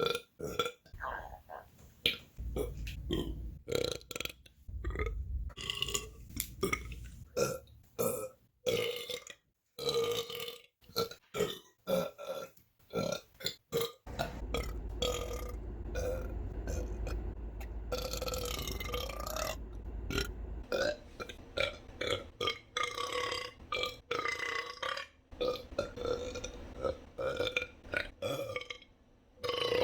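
A woman belching over and over: a string of short burps, then one long drawn-out belch lasting about six seconds, then more short burps.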